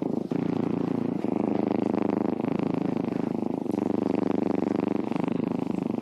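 Domestic cat purring close to the microphone, a continuous loud rumbling purr made of rapid fine pulses.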